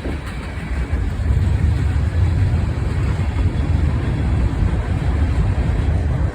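Freight train rolling past with a steady low rumble, wind buffeting the microphone.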